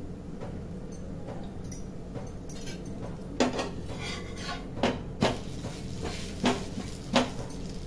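Metal spatula scraping and clinking against a nonstick pan as a dosa is loosened and flipped: five sharp clinks in the second half, over a steady low hum.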